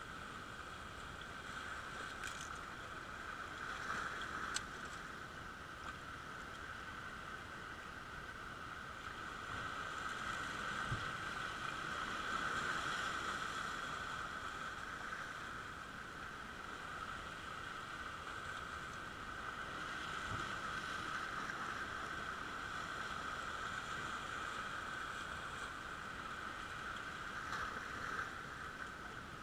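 Sea waves washing over shoreline rocks, a continuous wash that swells and eases every several seconds.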